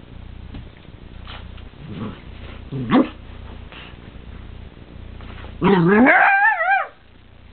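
Dogs at play vocalizing: a short rising yip about three seconds in, then, near the end, the loudest sound, a longer call of about a second whose pitch wavers up and down.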